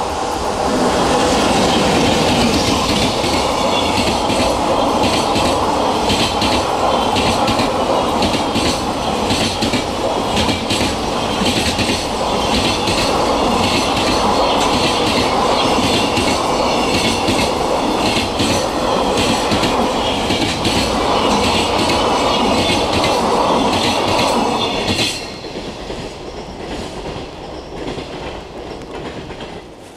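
Container freight train hauled by a JR Freight EH500 electric locomotive passing close by: a steady loud rumble with a continuous clatter of wheels over the rail joints. About 25 seconds in, as the last wagon goes by, it drops off sharply to a fainter, receding rumble.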